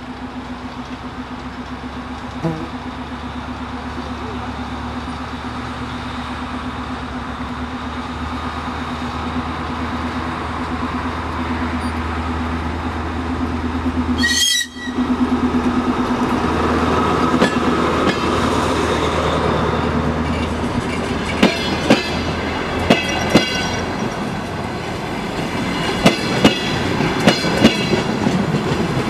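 DR1B diesel multiple unit with MTU diesel engines running with a steady drone that slowly grows louder. A brief sharp sound comes about halfway through. In the last third the wheels clack sharply over rail joints.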